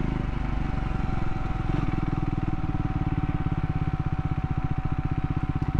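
Triumph Scrambler 400 X's single-cylinder engine running at low revs with an even pulsing beat.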